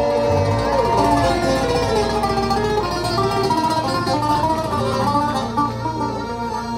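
Oud (Arabic short-necked lute) played solo, a run of quick plucked melody notes. A man's held sung note fades out about a second in, leaving the oud alone.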